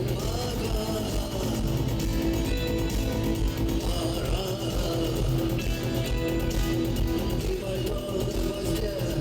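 Rock band playing an instrumental passage led by guitar, with no singing, over a steady beat.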